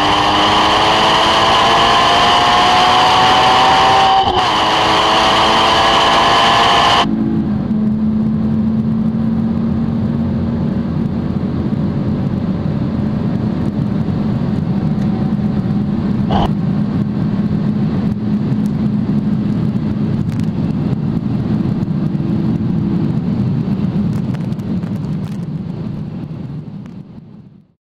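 Porsche Cayman GT4's flat-six under full-throttle acceleration, its pitch rising with a quick upshift about four seconds in. About seven seconds in the sound cuts to the Audi TT RS's turbocharged five-cylinder at high speed, a steady, duller drone that fades out near the end.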